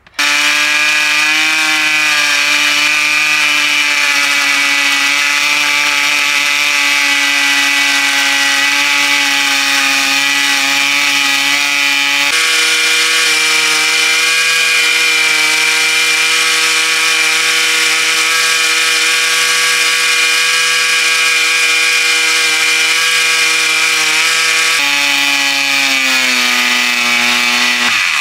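A 50 cc two-stroke mini dirt bike engine held at full throttle with no chain on, running unloaded at high revs as it is deliberately run to seize. It gives a steady high-revving buzz, and near the end the revs fall away.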